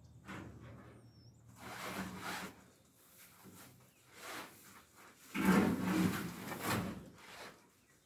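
A large blind being handled and hung, rustling and scraping in several irregular bursts, loudest a little past halfway.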